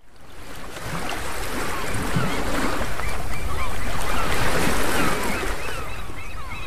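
Sea surf washing onto a beach, fading in over the first second, with many short chirping calls over it.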